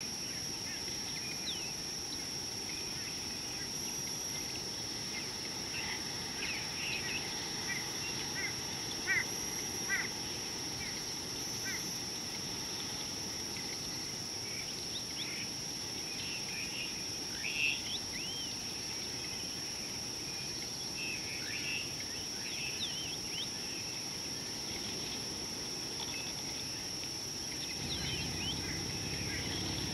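Outdoor bush ambience: scattered bird chirps and short whistles over a steady high-pitched drone and a background hiss. A low rumble comes up near the end.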